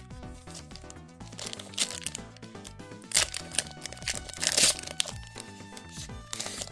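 Foil Pokémon booster pack wrapper crinkling in several loud bursts as it is torn open, over steady background music.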